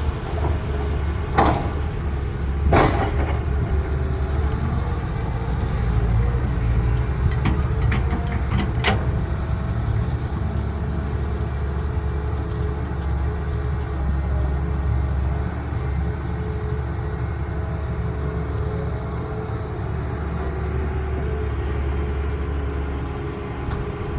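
Diesel engine of heavy earthmoving machinery running steadily, with two sharp knocks in the first few seconds and a few lighter clicks around the middle.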